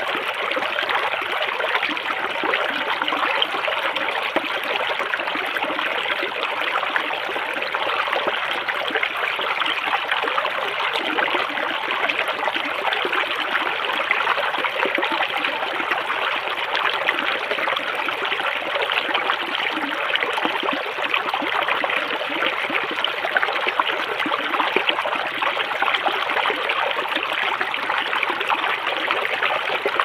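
Shallow river water rushing and splashing over and between rounded rocks, a steady close-up babble and gurgle with no change in its flow.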